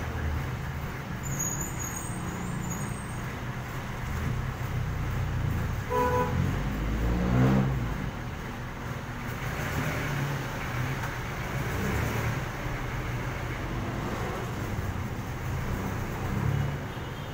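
Street traffic: jeepney and motorcycle engines running and passing in a steady low rumble. A short vehicle horn toot sounds about six seconds in, and an engine revs past soon after, rising then falling in pitch.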